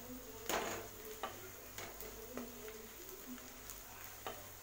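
Wooden spatula stirring onions and spice powders in a metal kadai, scraping and knocking against the pan about five times at an uneven pace, over a faint sizzle of frying onions.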